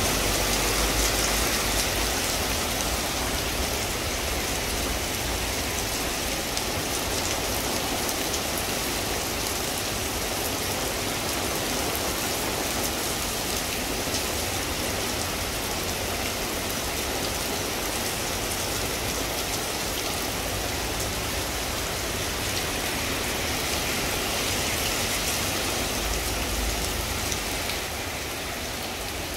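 Heavy rain pouring onto a street and pavement, a steady hiss. In the first couple of seconds a passing van's tyres swish through the wet road with a low rumble.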